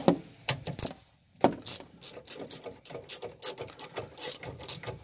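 Socket ratchet on an extension clicking in quick runs, about five clicks a second, as it backs out the 8 mm bolts holding a Prius hybrid battery computer. The bolts are coming loose.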